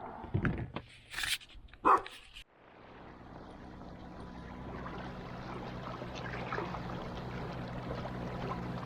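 A dog giving a few short yelps and barks among knocks during the first couple of seconds, the loudest about two seconds in. Then the sound changes abruptly to a steady low hum of a running motor with a hiss of water, as of the boat under way.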